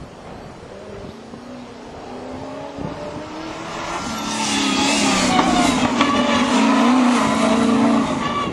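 Off-road race 4x4's engine running hard, growing steadily louder as it approaches and loudest in the second half, then dropping off sharply near the end as it passes.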